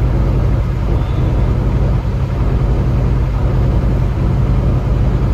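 A truck's engine and tyre noise heard from inside the cab while driving at a steady speed on a snow-covered highway: a loud, steady low drone.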